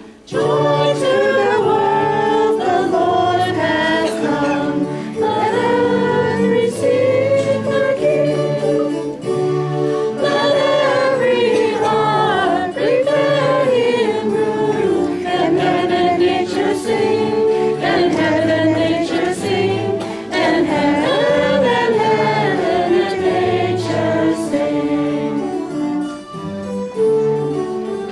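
Children's choir singing together, with a low accompaniment underneath whose notes come in a steady, regular pattern.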